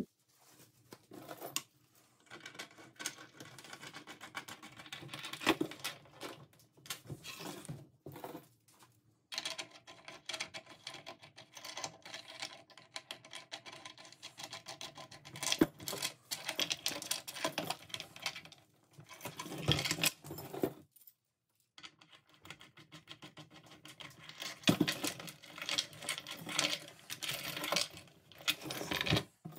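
Steel chain links clinking and rattling in gloved hands as the chain is hooked onto eye bolts on black iron pipe fittings, with irregular metal-on-metal clicks and scrapes. The sound drops out briefly twice.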